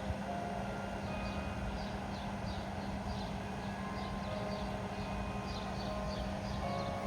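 Church bell chimes sounding single notes of a slow tune, one after another, over a steady low hum and rumble, with birds chirping.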